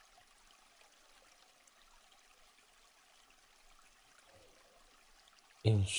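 Faint, steady rush of a waterfall recording, an even hiss of falling water under a pause in the narration. A man's voice starts just before the end.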